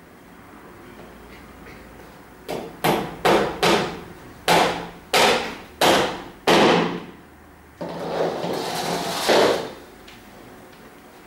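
Hammer blows, eight sharp strikes, some in quick pairs and some spaced about half a second apart, each ringing briefly: the sound of nailing in a staged crucifixion. A rougher noise follows, swelling for about two seconds and then stopping.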